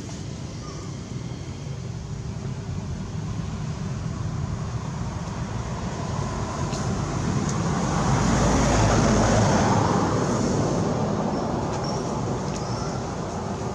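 Road traffic noise, a vehicle passing: a steady rumble that swells to a peak about nine seconds in and then fades.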